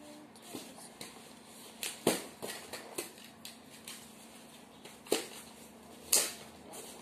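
Handling sounds of small kit pieces being fitted into a box: a few sharp knocks and clicks, the loudest about two seconds in, just after five seconds and near the end, with fainter taps between.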